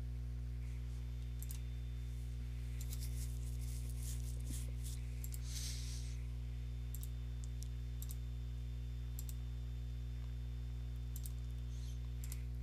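Scattered clicks of computer input, about a dozen spread unevenly, over a steady low electrical hum.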